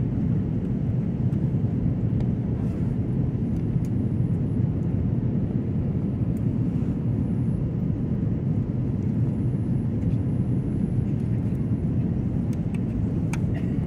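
Steady low rumble of airliner cabin noise from a window seat: engine and airflow noise as the plane descends on approach.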